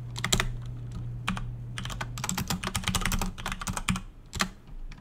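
Typing on a computer keyboard: a few separate keystrokes, then a quick run of keys from about two seconds in, thinning out near the end.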